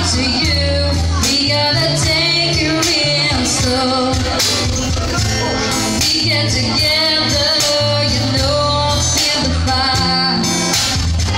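A band playing a song with a sung lead vocal over low bass notes and a steady drum beat.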